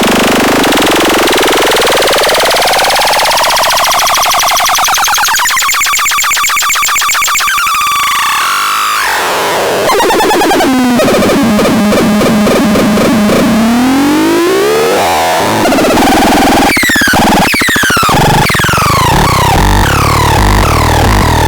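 Micro Tanz 2 electronic noise synthesizer playing harsh, buzzy tones. A pitch sweep rises for about eight seconds, then comes a stretch of stepped tones that slide down and back up, and rapid falling chirps repeat near the end.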